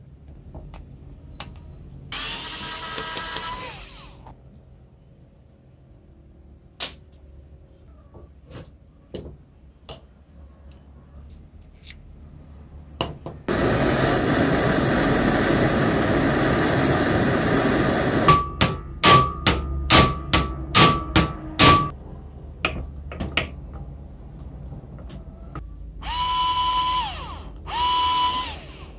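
Cordless electric screwdriver driving out screws from a vintage Black and Decker reciprocating saw's metal gear housing in short whirring bursts: one early on, two near the end. In the middle comes a loud steady noise of about five seconds, then a quick run of about eight sharp clicks.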